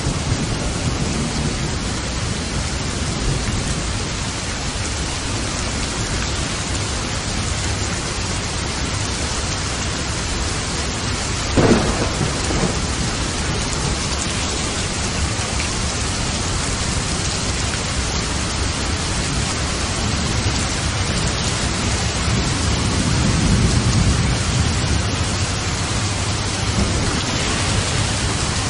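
Steady heavy rain in a thunderstorm, with low thunder rumbling in the background. There is one brief sharp crack about twelve seconds in, and a longer swell of rumble near the end.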